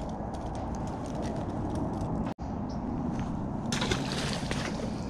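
A hooked fish thrashes and splashes at the water's surface for about a second, starting a little under four seconds in, over a steady low rumble. The sound cuts out for an instant a little past two seconds.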